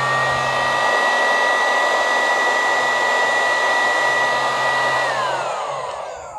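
Electric heat gun blowing, a steady rush of air with a fan whine, as it shrinks heat-shrink tubing over a crimped leader. About five seconds in the whine glides down and the noise fades as the fan spins down.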